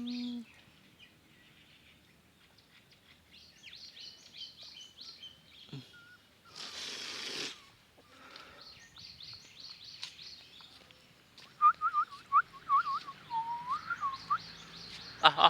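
Runs of quick, high-pitched squeaks from newborn puppies, with a short rustling hiss about seven seconds in, a series of short rising squeaks from about twelve seconds on, and sharp clicks at the very end.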